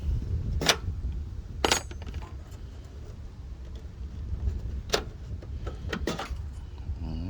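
Four sharp clicks and knocks, spread unevenly over several seconds, from the clips that hold a Ford Mustang's headlamp assembly in place being worked loose and taken out by hand, over a steady low rumble.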